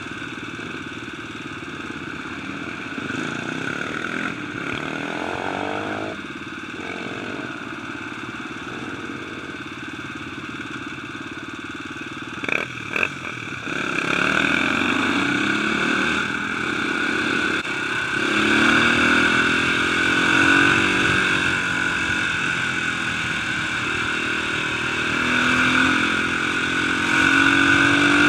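Dirt bike engine running under way, its revs rising and falling with the throttle and getting louder through the second half. Two short sharp knocks come around the middle.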